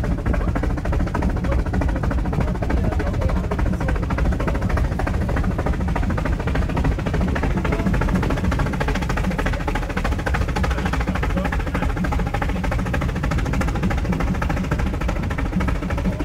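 Background music with a busy, rapid percussion rhythm over a heavy low end.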